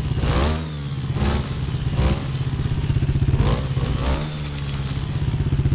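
Honda TRX400EX ATV's single-cylinder four-stroke engine running at low speed with several short throttle blips, settling to a steady idle near the end. The engine is freshly rebuilt and still being broken in.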